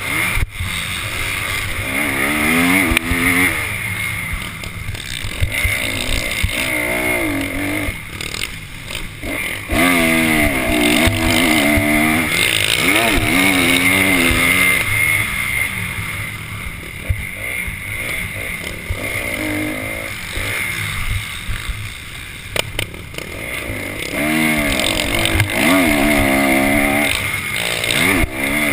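Motocross dirt bike's engine recorded on board, revving up and falling off again and again as the rider works the throttle and gears at race pace, with wind noise and a steady high-pitched whine underneath.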